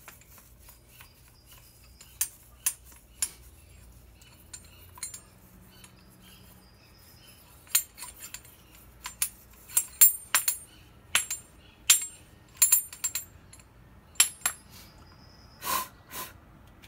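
Metal hand tools clicking and clinking as they are handled on the bench: scattered sharp ticks, few at first and coming thick and fast in the second half, with two short rasps near the end.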